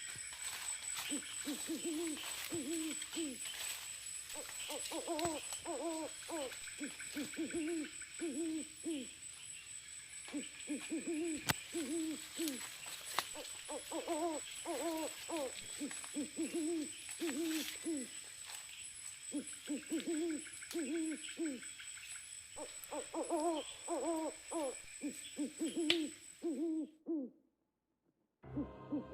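A bird, likely an owl, giving low hoots in short series of a few notes, repeated every couple of seconds, over a steady high-pitched whine. It stops abruptly near the end.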